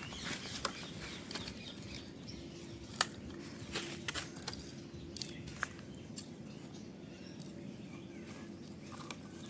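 Quiet outdoor ambience, with a steady low rumble, faint bird chirps and scattered sharp clicks and ticks.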